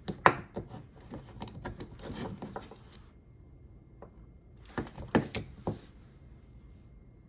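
Steel crowfoot wrenches clicking and clinking as they are handled and moved on their rail holder: a run of sharp clicks over the first three seconds, then a second short cluster about five seconds in.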